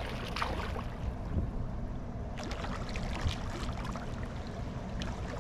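Pool water splashing and sloshing as a swimmer strokes through it, with a steady low rumble underneath. The splashes come in short clusters, busiest in the middle.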